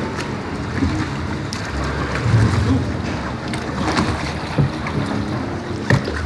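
Log flume ride in motion: a steady rush of water and ride noise around the log boat, with a few short sharp knocks.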